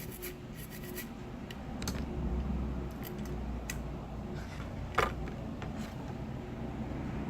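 Light scratching and small clicks of a fine metal tool working over freshly soldered flex-cable pins on a circuit board, with one sharper click about five seconds in. A low hum comes in about two seconds in.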